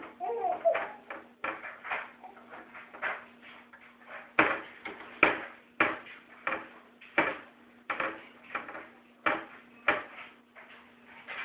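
Wooden kitchen cabinet doors knocked and clacked shut over and over by a toddler pulling at them: an irregular string of sharp knocks, about one or two a second, some much louder than others, over a faint steady hum.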